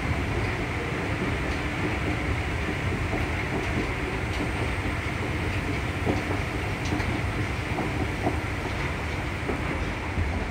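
Steady low rumble and hum of an underground railway station, with a few light clicks scattered through.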